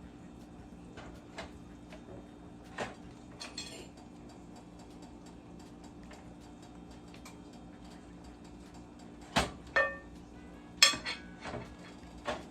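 Metal cookware and utensils clanking and clinking as a pot of boiled chicken is handled: a few sparse knocks early on, then a cluster of sharper clanks with short ringing in the last few seconds. A faint steady low hum runs underneath.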